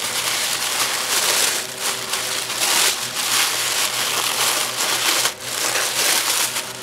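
Tissue paper rustling and crinkling unevenly as hands unfold and unwrap a package wrapped in it.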